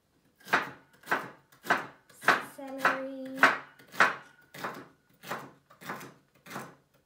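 Chef's knife chopping celery on a chopping board: a steady run of sharp knocks a little under twice a second, getting slightly softer toward the end.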